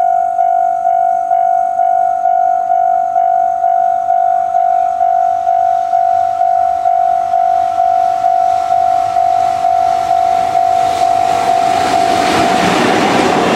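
Japanese railway level-crossing warning bell ringing in a steady beat of about two strikes a second. About eleven seconds in, the rumble of the approaching freight train, hauled by an EF66 electric locomotive, rises and comes to drown the bell.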